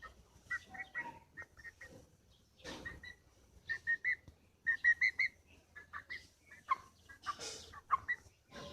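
Pet broiler chicken making quick runs of short, high chirps, with two longer breathy, hissing rasps about three and seven seconds in: the soft resting sound its owner calls snoring.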